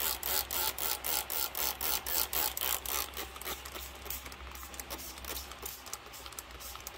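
A hand spray bottle spritzing water onto a paper towel of seeds to saturate it: quick repeated squirts, about four a second for the first three seconds, then fainter and more spaced out.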